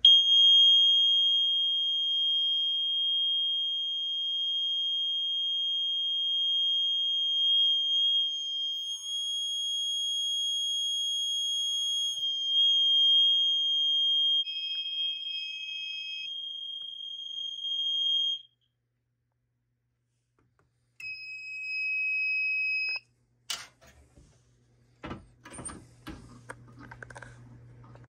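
Gentex GX90S mini horn sounding a continuous high-pitched alarm tone, set off by the ESL 521B smoke detector going into alarm, for about 18 seconds before it cuts off suddenly. A few seconds later a shorter, lower beep sounds for about two seconds, then a sharp click and some handling noise.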